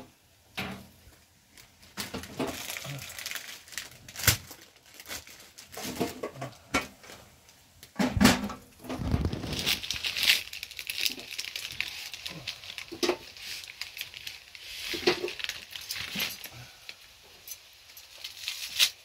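Kitchen handling sounds: a plastic food packet crinkling, dry grains pattering into a metal bowl, and scattered clinks and knocks of pots and utensils.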